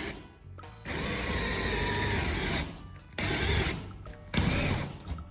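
Electric drill with a 1/4-inch steel bit drilling out the rivets on a truck's door hinges. It runs in one steady burst of about two seconds, then two short bursts, each starting and stopping sharply as the trigger is pulled and released.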